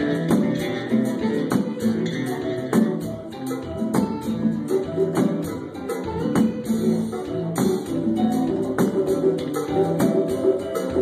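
Music: a strummed guitar with a tambourine keeping a steady rhythm.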